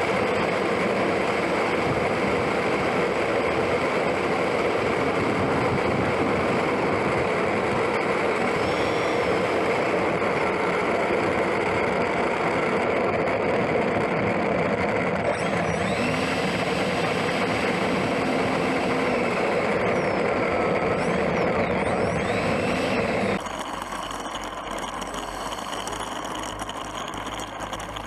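Electric ducted fan of an E-flite F-15 64mm jet running steadily at part throttle, a loud even rushing whir heard right on the airframe, with faint whistles rising and falling now and then. About 23 seconds in it drops suddenly to a much quieter steady rush.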